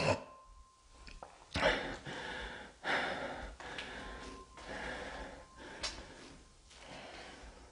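A person's breathing close to the microphone: several breaths in a row, each about half a second to a second long, with a short click about six seconds in.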